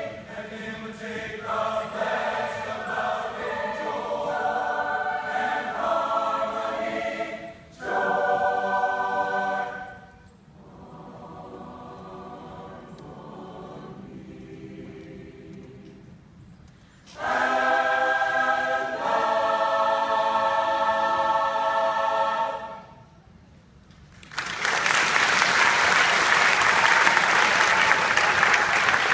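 Large mixed choir singing in full chords, dropping to a quiet passage and then swelling into a loud final chord that cuts off. After a short pause the audience breaks into steady applause for the last few seconds.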